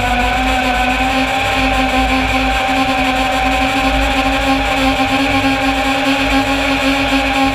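Martian 210 FPV racing quadcopter's brushless motors and propellers whining steadily in fast forward flight, the pitch wandering only slightly with throttle, with a low wind rumble on its onboard camera's microphone.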